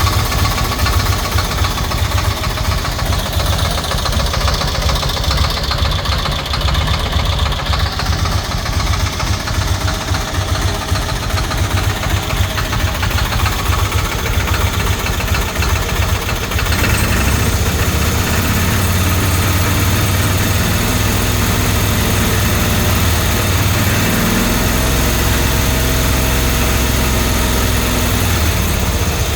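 Cushman Truckster's rebuilt 22 hp engine running, with a knock that the owner has not yet been able to pinpoint. It runs with a rapid, rough pulsing, then about halfway through changes to a steadier, more even note.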